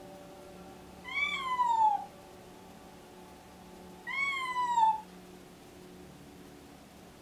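Deaf, pregnant white cat meowing twice, about three seconds apart, each call rising briefly and then falling in pitch: her restless meowing is a sign of pre-labor.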